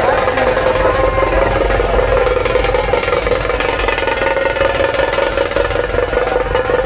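Several dhol barrel drums beaten fast and continuously together in a dense crowd, with a steady held tone sounding above the drumming.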